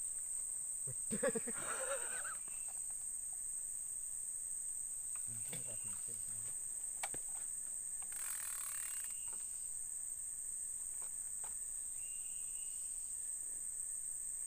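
Steady high-pitched drone of insects in riverside forest, with a few faint knocks and a brief rustle about two-thirds of the way through.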